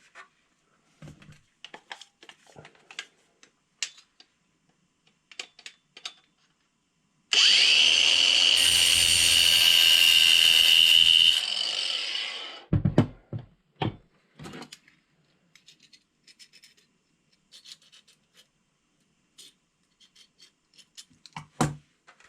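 Cordless angle grinder starting suddenly and grinding down the worn tip of a 1.5 mm Allen wrench to resurface it: a steady high whine with a grinding hiss for about four seconds, then winding down. Light clicks and knocks from handling the tools come before and after it.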